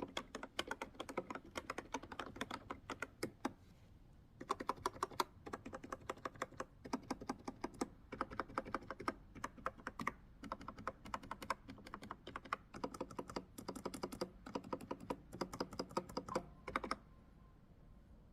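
B303 retro keyboard being typed on in quick runs of keystrokes, its switches freshly lubricated to quiet their rattly chatter. The typing pauses briefly about four seconds in and stops near the end.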